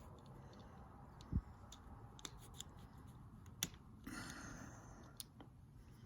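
Faint scattered clicks and taps from handling a small diecast toy car and hand tools, with a soft thump a little over a second in and a brief scraping about four seconds in.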